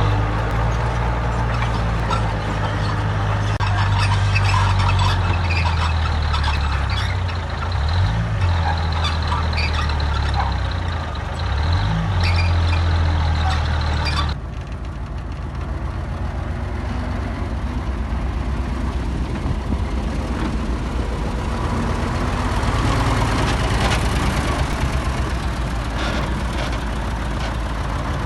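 Heavy diesel engine of earthmoving machinery working, its pitch rising and falling under load with clanks and clicks. About halfway through it cuts abruptly to a quieter diesel engine running steadily.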